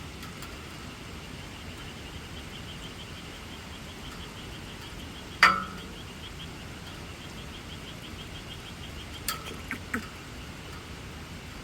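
Steady rain hiss with a faint, high chirping that repeats about four times a second. A single sharp clink rings out about five and a half seconds in, and a few lighter clicks follow around nine to ten seconds.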